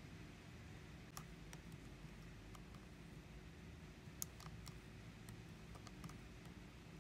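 Soft, scattered clicks of a thumb pressing the buttons and control wheel on the back of a Sony NEX-3 mirrorless camera, the sharpest about four seconds in, over a faint low hum.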